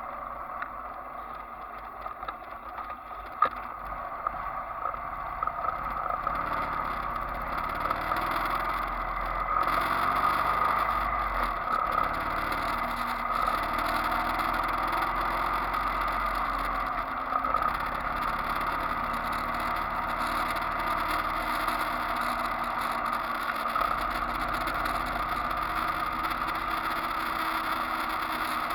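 Riding noise from a moving motorcycle: a steady rush of wind and road with the engine running underneath, its pitch rising and falling with the throttle. It gets louder about eight to ten seconds in.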